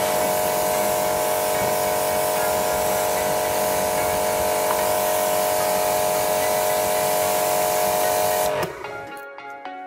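Home high-pressure washer running with its jet spraying: a steady loud hiss of water over a steady hum from the machine. It cuts off suddenly near the end and gives way to plucked background music.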